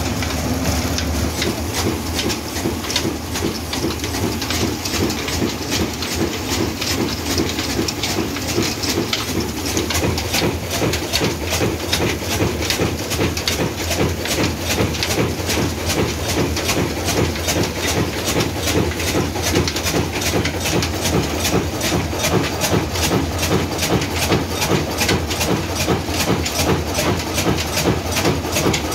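Old Ruston diesel engine running steadily: a quick, even beat over a hiss.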